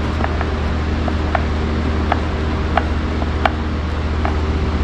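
About ten small, irregular clicks and taps of a small screwdriver working on an old Poulan chainsaw, over a steady low machine hum.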